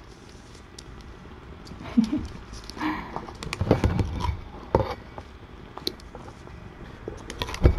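Close handling noise from a disposable-gloved hand stroking kittens right at the microphone: irregular rustles, scuffs and clicks, busier from about two seconds in, with a louder knock near the end.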